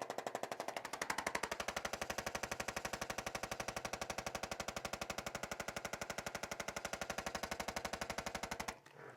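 Motorised percussion tool, of the kind used on the body in chiropractic work, hammering in a rapid, even pulse over a motor buzz, then switched off abruptly near the end.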